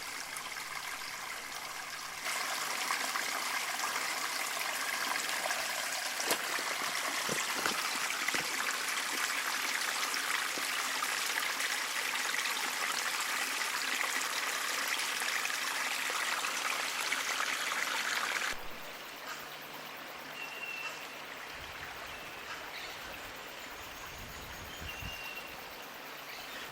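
Small forest stream running and trickling over rocks, a steady rush of water. It gets louder about two seconds in and quieter after about eighteen seconds.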